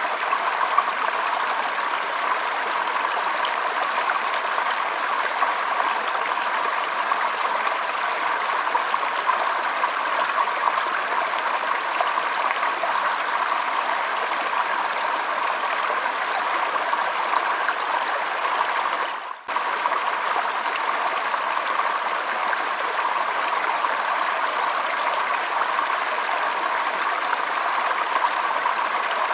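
Shallow stream trickling and flowing over stones, a steady, even rush of water with a brief dip in level about two-thirds of the way through.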